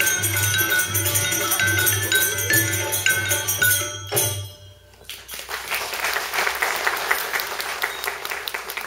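Rajasthani terah taali folk music: a drum and small metal hand cymbals (manjira) clinking in rhythm, which stops abruptly about four seconds in. About a second later, audience applause starts and continues.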